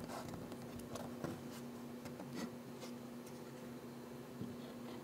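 Faint scratchy handling sounds: blue tape being peeled off a white oak bowl and the wooden pieces handled, a few short rustles and light clicks over a steady low hum.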